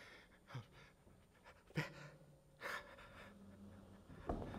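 A man panting in fear: three sharp, gasping breaths about a second apart, acted out by a storyteller voicing a terrified character.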